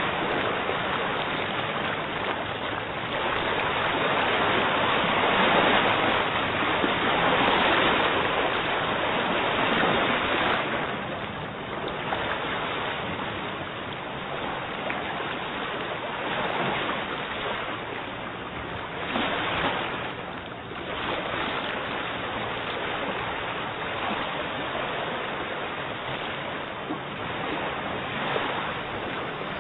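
A rushing noise like running water, loudest through the first ten seconds or so and then easing, with a faint low hum beneath.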